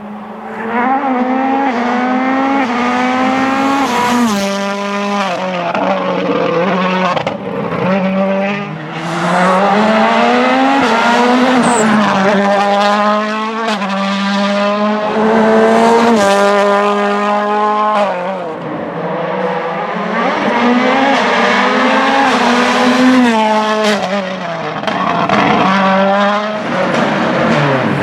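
Toyota Yaris WRC rally car's turbocharged 1.6-litre four-cylinder engine driven hard, the pitch climbing again and again and falling sharply at each gear change or lift.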